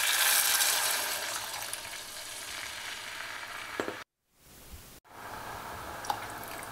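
Water poured into a stainless steel pot of hot sesame oil with garlic, scallion and chili flakes: a loud sizzle that dies down over about three seconds. After a brief silence about four seconds in, the pot sizzles steadily again.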